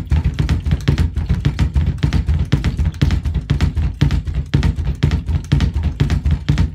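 Kick drum played barefoot on a double bass-drum pedal using the scuff technique, with heel-heel then toe-toe strokes on each foot. The beater strokes come in a rapid, even, unbroken stream.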